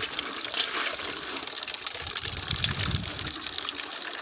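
Water gushing from a pipe into a metal basin of freshly dug groundnuts in their shells, the pods sloshing and clicking against each other as a hand stirs them to wash off the soil.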